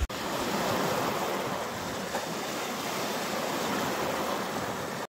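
Small lake waves breaking over a boulder and washing up a pebble beach: a steady rush of surf that cuts off suddenly near the end.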